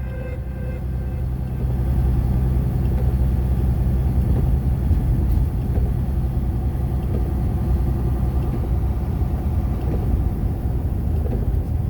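Car driving along, a steady low rumble of engine and road noise, with the last of a song fading out in the first second.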